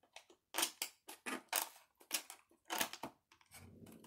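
Scissors cutting through stiff plastic clamshell packaging: a quick series of sharp crunching snips, two or three a second.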